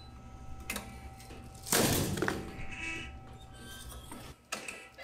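Shrimp-cracker puffing press running with a low hum, then about two seconds in its heated mould releases with a loud pop and a short rush of noise as the shrimp paste puffs into a cracker. A couple of lighter mechanical knocks come before and after it.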